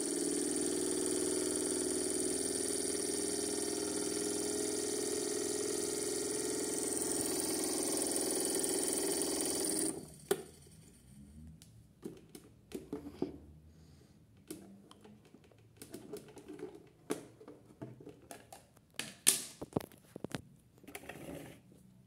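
Small electric motor of a Piko Sonnette toy washing machine running with a steady hum, cutting off abruptly about ten seconds in. After that come scattered clicks and knocks as the toy's metal-and-plastic body is handled.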